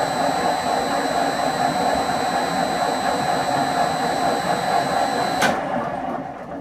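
Hi-Power geared-head lathe running steadily at about 85 rpm with a heavy faceplate load, its gears and cut making a steady mechanical noise over a high, steady whine from the variable-frequency drive. About five and a half seconds in there is a click, the whine cuts off as the drive is switched off, and the machine runs down.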